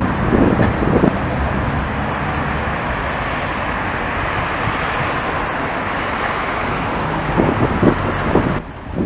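Steady rolling rumble of a vintage tram approaching along street track, mixed with road traffic noise and wind on the microphone. The sound drops away suddenly near the end.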